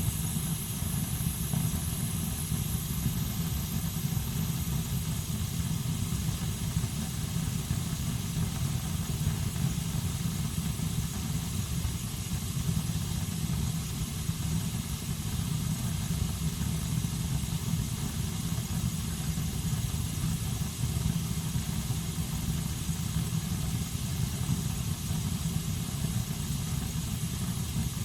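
Home heating system running with a steady low rumble.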